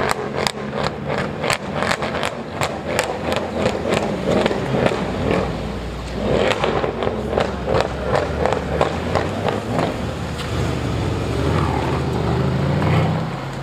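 Sports car exhaust, the engine note low and running, with rapid series of sharp pops and crackles at about three to four a second in two runs; the engine note gets louder near the end.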